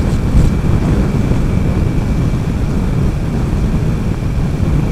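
Steady wind rushing over the microphone of a motorcycle riding at highway speed, over the low, even rumble of the bike. A faint steady high-pitched whine sits over it throughout.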